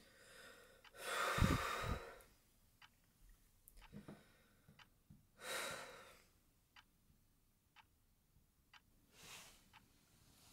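A man's heavy sighs and breaths, three of them: a long one about a second in (the loudest), another about five and a half seconds in and a shorter one near the end. Under them a clock ticks about once a second.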